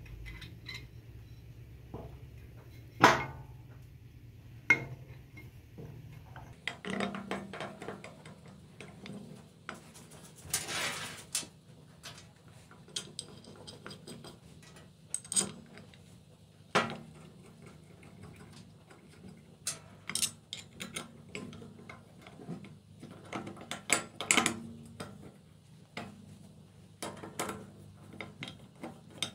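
Metal parts and hand tools clinking, tapping and scraping, irregular and scattered throughout, during reassembly of a car oil pump. A louder scraping stretch comes about ten seconds in.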